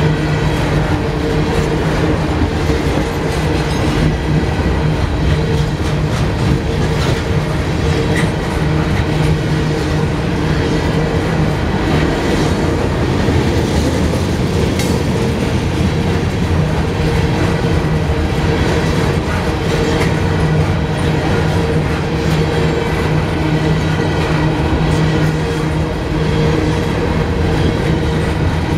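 A CSX freight train of open-top hopper cars rolling steadily past: a continuous rumble and rattle of the cars, with wheels clicking over the rail joints.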